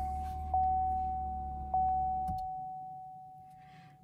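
Car's warning chime with the ignition switched on and the engine not running: a single tone struck twice about a second and a quarter apart, fading away near the end. Under it a low hum runs and then cuts off with a click a little past two seconds in.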